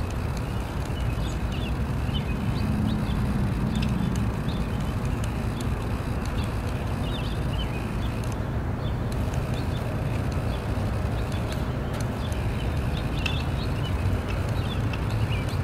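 Outdoor ambience: a steady low rumble, with small birds chirping briefly now and then over it.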